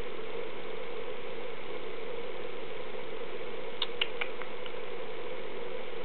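A three-week-old kitten gives a few very short, high, squeaky mews, a quick cluster about four seconds in, over a steady low hum.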